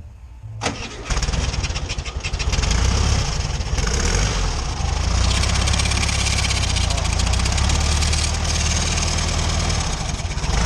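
Volkswagen Beetle's air-cooled flat-four engine starting about a second in, then running steadily. The noise being shown comes from the alternator, whose worn bearings are described as horrible.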